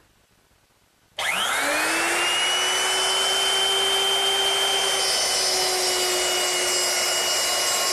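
Electric router with a 1/2-inch mortising bit switched on about a second in. Its whine rises quickly as the motor spins up, then it runs steadily as it cuts a hinge mortise in an oak door.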